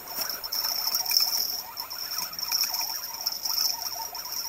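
Night insects, crickets, chirring steadily at a high pitch.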